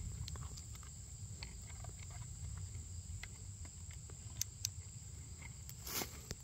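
Steady high-pitched trill of insects, with scattered small plastic clicks and taps as a trail camera's case and buttons are handled; a couple of louder clicks come a little over four seconds in and another near the end.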